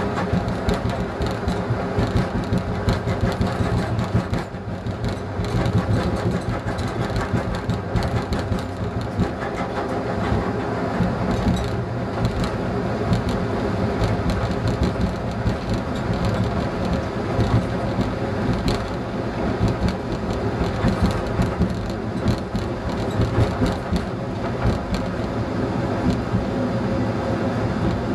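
ČD class 854 diesel railcar running at speed: the diesel engine's steady drone under the rolling noise of wheels on rails, with frequent short clicks from the track.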